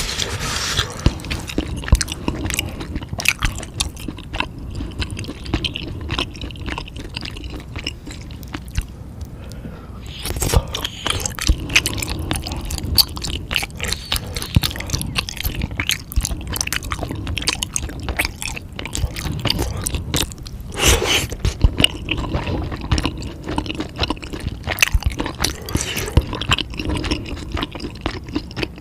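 Close-miked chewing: a person biting and chewing food with wet, squishy mouth sounds and frequent crackly crunches, over a steady low rumble.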